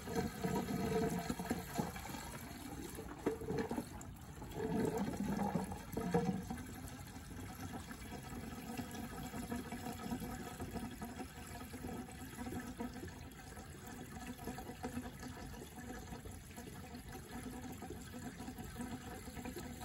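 Windshield washer fluid pouring from a one-gallon plastic jug into the empty washer-fluid reservoir of a Chevrolet Bolt EV. It is louder and uneven in spells during the first six seconds, then settles into a steadier, quieter pour.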